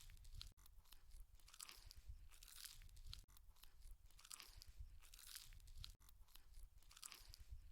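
Faint close-miked chewing and crunching of spicy chicken feet, with a crunchy bite about once a second.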